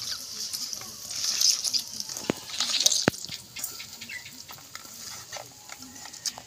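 Hand squeezing and breaking boiled dried jujubes in a stainless steel bowl: wet squishing and rustling of the soft fruit, with two sharp clicks against the metal bowl about two and three seconds in.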